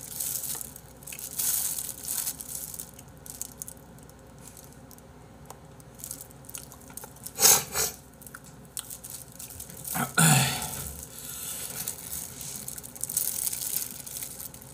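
Plastic disposable gloves crinkling and rustling as hands tear apart a seaweed rice ball and handle chicken feet, with scattered noisy rustles. Two sharp, loud crackles come about halfway, and another loud rustle about ten seconds in.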